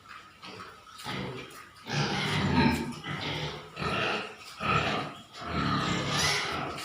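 Pigs grunting in a run of short, rough, irregular calls, fainter at first and louder from about two seconds in.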